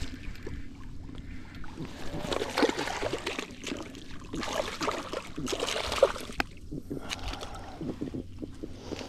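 Water splashing and sloshing at the side of a kayak as a hooked trout is fought close in, with scattered clicks and knocks.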